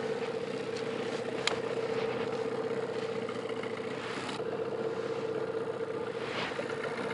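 Hidea 9.8 outboard motor running steadily on a small river boat, with a light click about one and a half seconds in.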